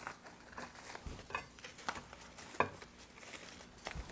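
Flower stems and foliage being handled and pushed into a floral arrangement: scattered soft rustles and light taps, with one sharper click about two and a half seconds in.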